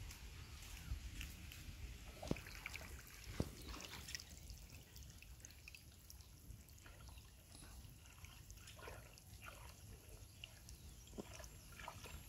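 Faint trickling, dripping and light sloshing of water as floating azolla is scooped with a hand net and gathered by hand in a shallow pond, with scattered small clicks and two sharper ticks a few seconds in.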